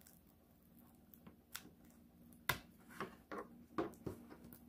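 Double-sided adhesive tape being peeled slowly off the edge of a diamond painting canvas, with faint rustles and small sharp clicks as it lifts. The sharpest click comes about two and a half seconds in, and a few more follow over the next second and a half.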